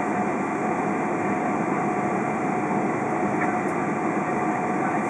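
Steady cabin noise inside a Boeing 777-200 airliner taxiing, its jet engines running at low power under a constant rush of air, with a faint steady tone.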